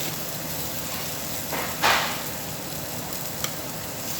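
Meat sizzling on a Korean barbecue tabletop grill, a steady hiss that swells briefly about two seconds in. A single sharp tick near the end.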